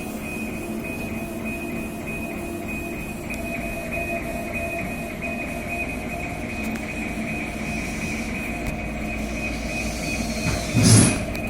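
CO2 laser engraving machine running under test: a steady high whine that flutters rapidly, over a steady low machine hum, with a short louder rush of noise near the end.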